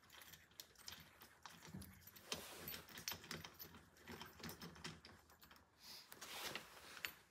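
Faint, irregular small metallic clicks and rattles as a trolling motor lock is hand-screwed onto its mount bolt, the key in the lock jingling.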